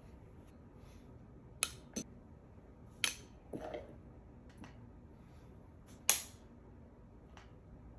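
Thrown straws striking a plastic electric pencil sharpener and the surfaces around it: a handful of separate sharp clicks and knocks over several seconds. The loudest comes about six seconds in and rings briefly.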